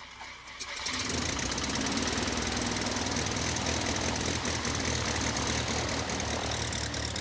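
Bellanca Super Decathlon's four-cylinder Lycoming aerobatic engine and propeller, coming in about a second in and then running steadily on the ground.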